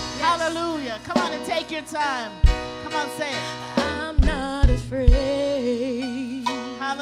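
A woman singing a slow worship song live over keyboard and drum kit, the kick drum thumping now and then. Near the end she holds a long note with vibrato.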